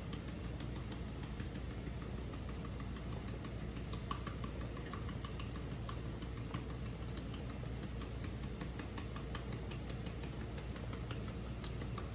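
Crawfish tails frying in a pot, with small scattered crackling pops over a steady low hum.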